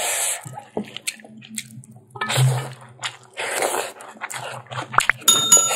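Close-miked eating by hand: fingers squishing and mixing rice, chicken and greens on a plate, then wet chewing and mouth smacks. A short high ringing tone sounds near the end.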